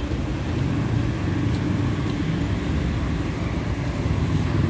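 Steady city street traffic noise: a low rumble of cars on the road.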